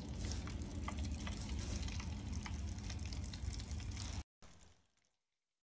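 Breaded fish fillets deep-frying in hot oil in a basket fryer pot: a steady sizzle with scattered small pops and crackles. It cuts off suddenly about four seconds in, and a brief fainter trace fades out after it.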